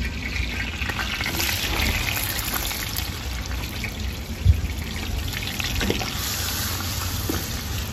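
Grated onion hitting hot oil in a pan and sizzling as it fries and is stirred with a wooden spoon. There is a single knock about four and a half seconds in.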